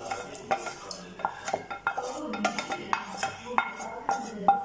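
Wooden spatula scraping and knocking against a frying pan as fried onions and dried red chillies are pushed off it into a steel mixer jar. It makes irregular clacks and scrapes, some leaving a short metallic ring.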